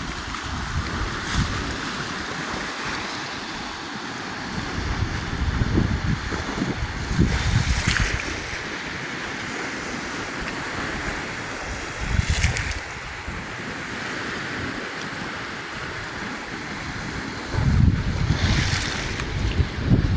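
Choppy lake waves slapping and splashing in a steady rush, driven by strong wind. Wind gusts buffet the microphone, strongest about six to eight seconds in, around twelve seconds, and near the end.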